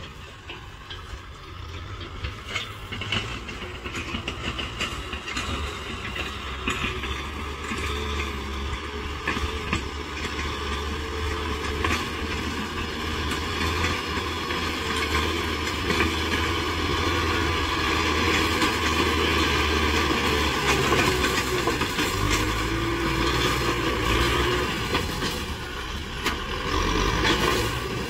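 Kubota M6040 tractor's four-cylinder diesel engine running under load while it pulls a disc plough through the soil, growing steadily louder as the tractor comes closer.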